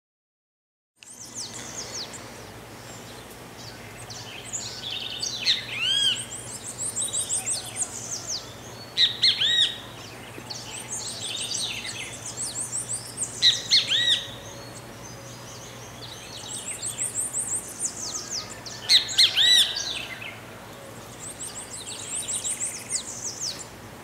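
Great kiskadee (bem-te-vi) calling repeatedly, starting about a second in: loud arched call notes every few seconds, with runs of quicker, higher chattering notes between them. A faint steady low hum runs underneath.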